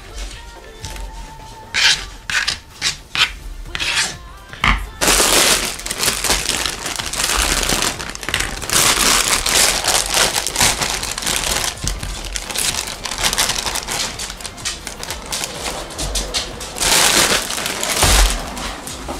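A kitchen knife chopping mini bell peppers on a thin plastic cutting board, a few separate strokes, then from about five seconds in a long spell of crinkling and rustling from a plastic bag as broccoli florets are pulled out onto the board.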